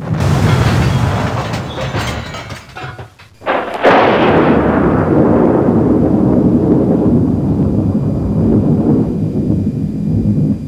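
Thunder sound effects: a crackling roll that begins suddenly, then, about three and a half seconds in, a sharp, loud thunderclap that rumbles on, its crackle slowly dying away.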